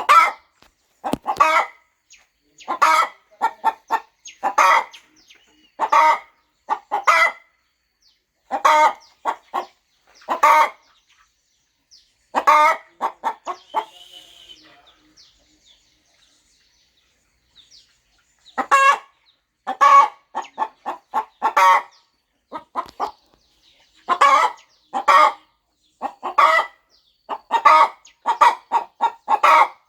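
Broody hen clucking in short, repeated calls about every second or two, pausing for a few seconds midway before starting again.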